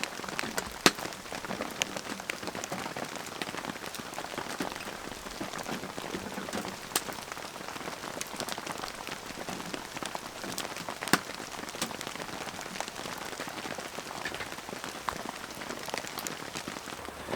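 Steady rain falling, with many individual drops striking a surface in sharp, irregular ticks over the even hiss.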